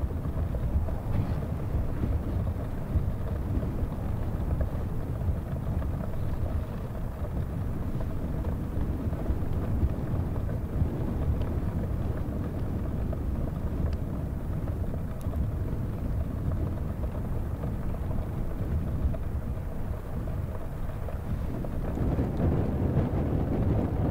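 Wind buffeting the microphone: a steady, gusting low rumble that grows a little louder near the end.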